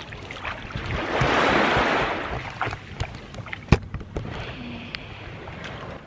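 Small sea waves lapping and washing against the shore and jetty, with a swell of wash about a second in, wind rumbling on the microphone, and a few sharp knocks, the loudest a little past halfway.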